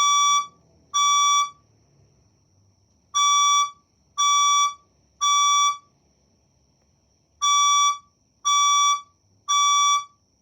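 Fire alarm speaker sounding the temporal-three evacuation tone: groups of three loud, identical beeps, each about half a second long and a second apart, with a pause between groups. A faint steady high whine runs underneath.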